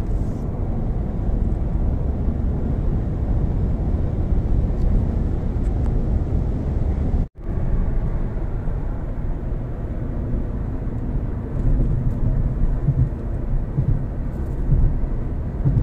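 Steady low rumble of road and engine noise inside a car cruising on a highway. It drops out for an instant about seven seconds in.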